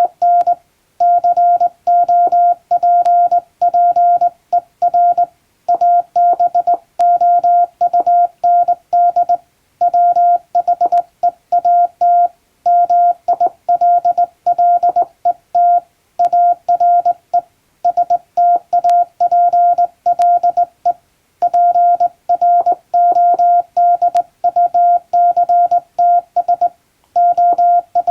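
Morse code hand-sent on a straight key: a steady single-pitch beep tone keyed on and off in dots and dashes, in groups separated by short pauses.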